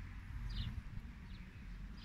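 A small songbird chirping, short high notes repeated about three times, over a low rumble.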